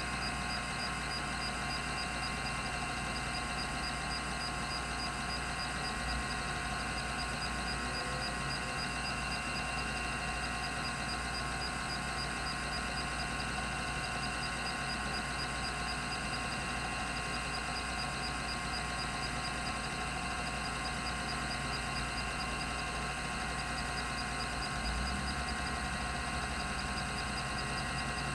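Rodime RO352 10 MB 3.5-inch hard drive running: its spindle motor and two platters spin steadily at 3600 RPM, giving an even hum with several steady whining tones and no seek clicks.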